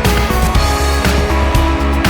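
Background music with a steady, driving beat and guitar.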